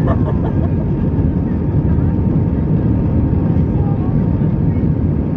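Airbus A320 cabin noise in flight: the steady rumble of engines and airflow heard from a window seat over the wing, with a faint steady whine on top. Faint voices murmur in the cabin near the start and again about four seconds in.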